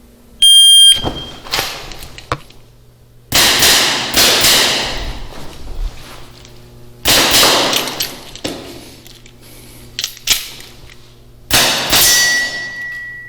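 Shot-timer start beep, then an airsoft revolver firing in quick strings: shots in clusters with gaps of a second or two between them, typical of pauses to reload. A steady ringing tone sets in near the end, like a struck steel target.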